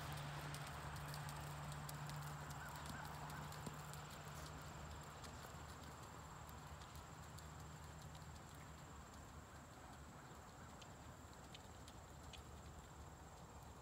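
Horse cantering on sand arena footing, its hoofbeats faint and muffled, growing quieter as it moves away. A steady low hum sounds under it and fades out about two-thirds of the way through.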